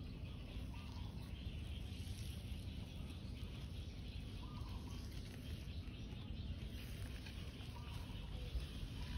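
Quiet outdoor background: a steady low rumble with a few faint, brief chirps scattered through it.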